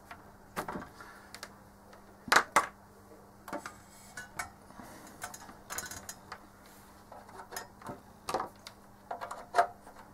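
Irregular clicks and knocks of test leads with banana plugs being handled and pushed into the rear input jacks of a Keithley 199 multimeter, with its open metal case being shifted on the bench. The loudest is a double knock about two and a half seconds in.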